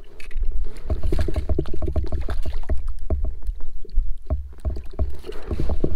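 Water splashing and sloshing as a hooked fish thrashes at the surface beside an inflatable boat and a wooden landing net is plunged in after it, with many irregular dull thumps.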